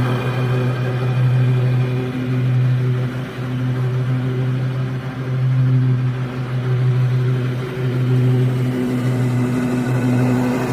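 Lawn mower engine running steadily under load, a constant low hum that dips slightly in level a few times.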